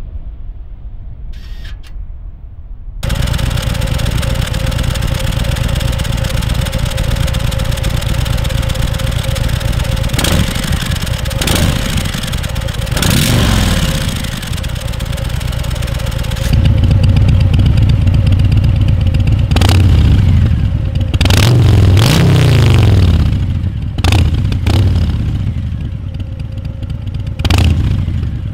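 A 2020 Harley-Davidson Softail Street Bob's Milwaukee-Eight V-twin running through KessTech twin slip-on mufflers. It idles with a deep, uneven beat, gets louder about three seconds in, and is blipped several times, revving up and dropping back to idle.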